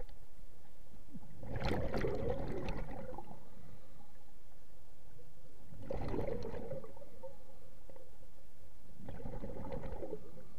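Scuba diver's exhaled air bubbling out of a regulator, heard underwater through a camera housing: three rushing, gurgling exhalations about four seconds apart.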